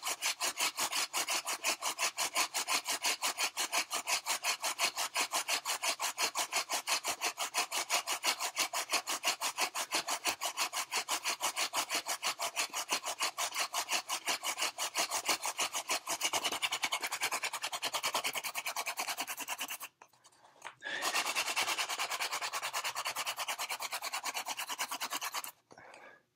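A goldenrod hand-drill spindle spun between the palms, grinding in the notched socket of a western red cedar hearth board with a fast, even rhythm of rubbing strokes. It breaks off for about a second two-thirds of the way through, starts again, and stops near the end, once the ground-off dust in the notch has become a glowing ember.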